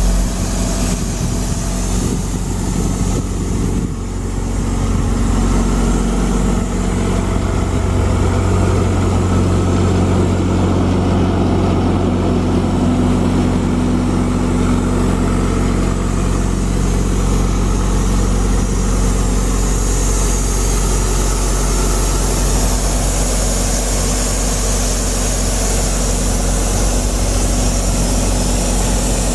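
John Deere 4045 4.5-litre four-cylinder diesel engine of an Atlas Copco XAS186 towable air compressor, running steadily with a brief dip in loudness about four seconds in.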